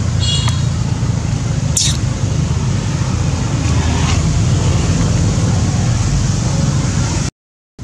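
Steady low outdoor background rumble, with a brief high chirp just after the start; the sound drops out suddenly near the end.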